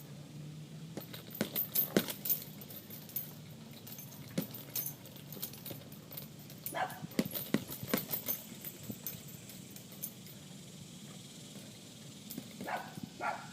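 Boxing gloves hitting a heavy punching bag in quick combinations: clusters of sharp smacks with a light metallic jangle, separated by short pauses.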